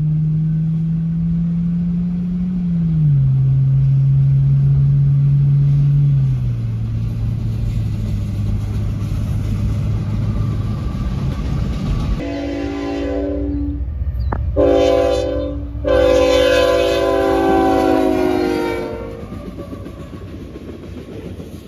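A steady low engine drone steps down in pitch twice. Then a freight locomotive's multi-chime air horn sounds three blasts for a road crossing, the last held about three seconds, and the train's rumble follows.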